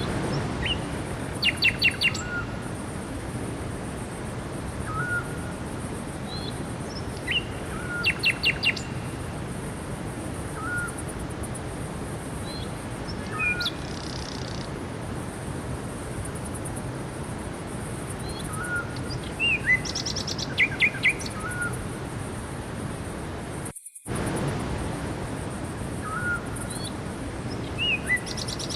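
Forest birds singing: a short hooked whistle repeated every second or two, and now and then a quick run of about four sharp notes, over a steady rushing noise. The sound cuts out for an instant about 24 seconds in.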